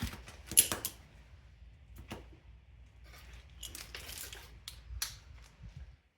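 A new motorcycle chain being handled: irregular metallic clicks and rattles of the links, with a sharp click about half a second in.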